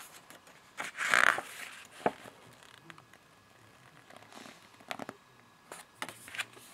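Pages of a small paper DVD booklet being turned by hand: a loud rustling swish about a second in, then light clicks and handling noises as the booklet is held open.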